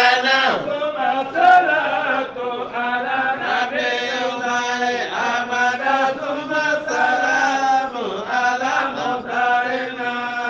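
Chanting of a qasida, an Islamic devotional poem, in long held melodic lines over a steady low tone.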